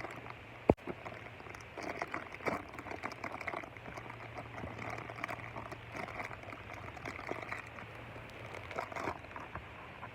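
Handling noise: a sharp thump under a second in, then irregular small crackles and rustles, as of something being handled or squeezed close to the microphone.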